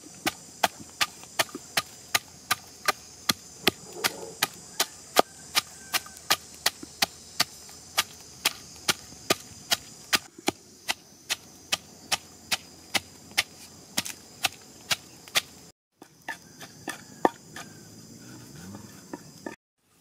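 Wooden pestle pounding chilies, garlic and salt in a wooden mortar: a steady knock about three times a second, which thins out and stops a few seconds before the end.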